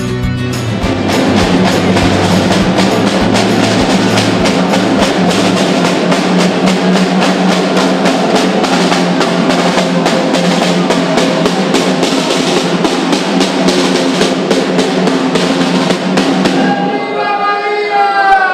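Snare drum beaten in a steady, rapid marching rhythm. The drumming stops near the end as voices start to sing.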